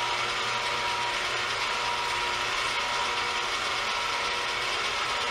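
Crane hoist running steadily, winding in its cable as it lifts a fiberglass water-softener resin tank: a continuous gear noise with a steady whine.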